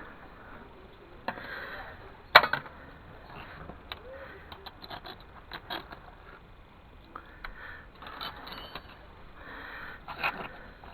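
Small metal objects and tools being handled: scattered clicks and clinks with rustling, and one sharp clack about two and a half seconds in.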